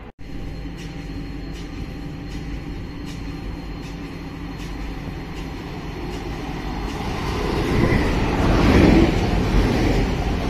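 Double-deck electric multiple unit approaching and pulling into the platform, its running noise growing steadily louder over the last few seconds.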